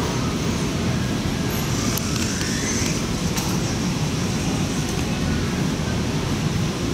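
Steady low rumble of a large store's background noise.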